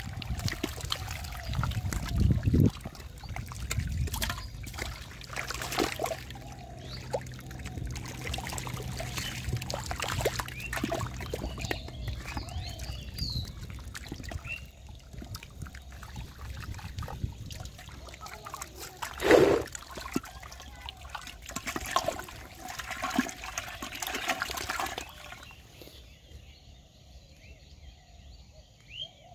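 Catfish wriggling and thrashing in shallow muddy water, sloshing and splashing, with water trickling through a fish trap. One louder thump stands out about two-thirds of the way through, and the sound turns quieter near the end.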